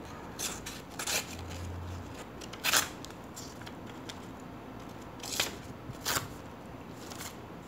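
Paper being cut with a Leatherman Micra keychain multitool: a handful of short, sharp cutting strokes spaced unevenly, the loudest about three seconds in.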